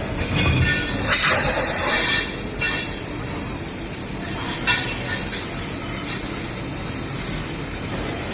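A CNC flow drill drilling and tapping machine at work: steady machine noise with a loud hiss about a second in, lasting about a second, and a sharp click near the middle.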